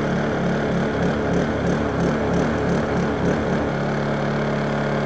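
Small Honda generator engine running with a wavering, pulsing note, about three pulses a second, that settles into a steady hum about three and a half seconds in.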